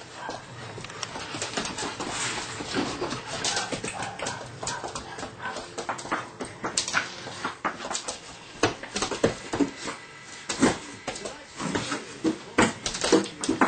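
Belgian Malinois puppy whimpering, mixed with sharp clicks and taps that come more often in the second half.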